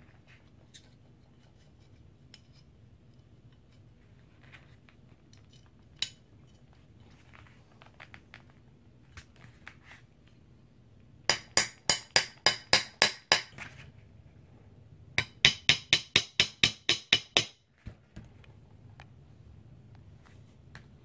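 Claw hammer tapping the hammer pin through an AR-15 lower receiver and fire-control hammer: two quick runs of about ten sharp taps each, roughly four to five a second, a couple of seconds apart. Light clicks of parts being handled come before them.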